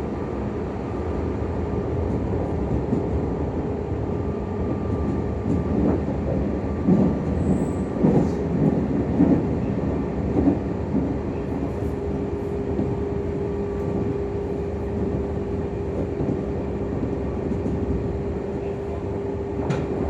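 Meitetsu 6000 series electric train running, heard from inside the car: a steady rumble of wheels on rail, with irregular knocks between about six and ten seconds in. A steady hum runs underneath and grows stronger about twelve seconds in.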